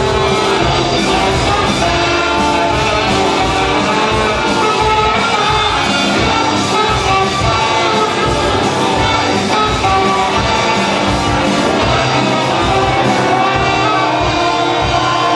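Live rock band playing loudly, with a driving drum beat, guitar and vocals.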